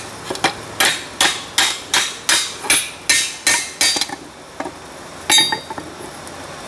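A hand hammer striking red-hot steel held in tongs on a Peter Wright anvil, about ten blows at roughly three a second, hammering a bend out of a forged patch. After a couple of light taps comes one loud ringing clang of steel on the anvil.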